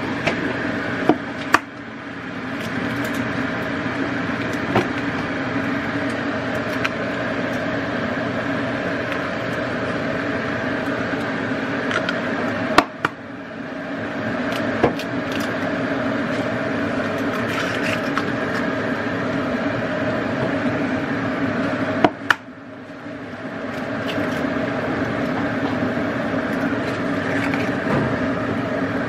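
Steady mechanical hum of a running kitchen appliance, with a few light clicks and knocks. It drops out briefly twice and builds back up each time.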